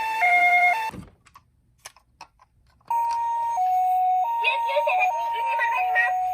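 Toy ambulances' electronic two-tone hi-lo sirens. One siren cuts off about a second in, and after a short near-silent gap with a few faint clicks, a second toy ambulance starts its hi-lo siren. A tinny recorded voice soon sounds over the second siren.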